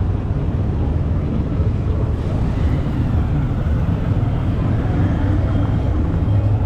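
Steady engine and road rumble of a moving vehicle, an even low drone with no sharp events.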